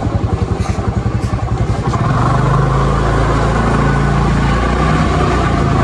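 Motorcycle engine running while riding, with a fast throbbing beat for about the first two seconds that evens out into a steadier drone.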